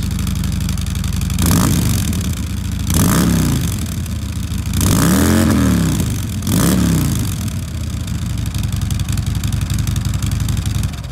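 2014 Harley-Davidson Ultra Limited V-twin running through its stock exhaust mufflers: a steady idle, then four quick throttle blips in the first seven seconds or so, the third the highest and longest, before it settles back to idle.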